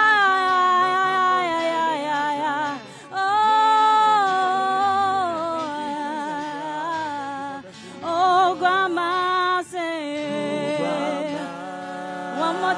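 A woman singing a worship melody solo into a microphone, in long held notes that waver and glide, broken by a few short pauses between phrases.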